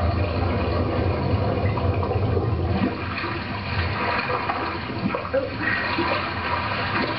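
Rushing water with a low rumble, played from a television in the room. The rumble is heavier for the first three seconds, then eases to a lighter wash.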